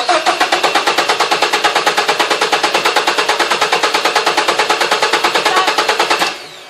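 Mazda 3's starter motor cranking its four-cylinder engine with the spark plugs out, for a compression test, so the engine spins without firing. It makes a fast, even pulsing that stops suddenly near the end.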